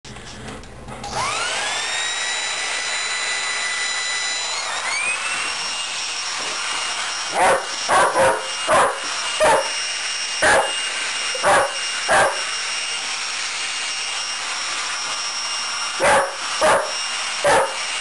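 A handheld hair dryer switches on with a rising whine about a second in and then runs steadily, its pitch shifting briefly near five seconds. An Old English Sheepdog barks at it, about eleven loud barks: a run of eight from about halfway in and three more near the end.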